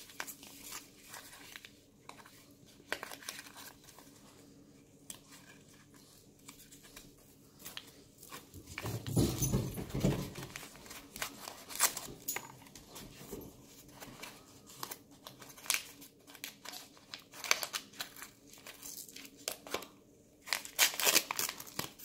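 Brown paper wrapping crinkling and tearing as a small oil bottle is unwrapped by hand, with scattered crackles throughout. A louder, lower burst of noise comes about nine seconds in.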